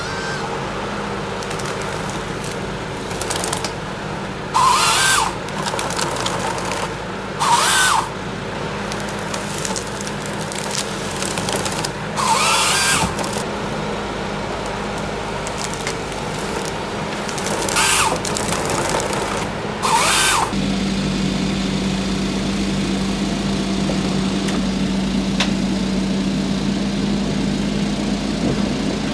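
Forestry machine's diesel engine running steadily while a Nisula 425C harvester head works. There are five short, harsh bursts of its saw cutting through stems. From about two-thirds of the way in, the engine settles into a louder, even hum.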